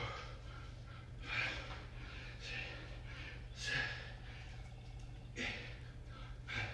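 A man breathing hard, with sharp, heavy exhales coming about five times, roughly one every second or so, out of breath from high-intensity exercise. A steady low rumble lies underneath.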